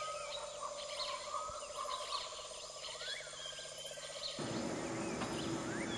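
Rainforest ambience: many birds chirping and whistling, some calls sliding up and down in pitch, over a steady buzzing drone of insects. About four seconds in, the drone gives way to a broader hiss.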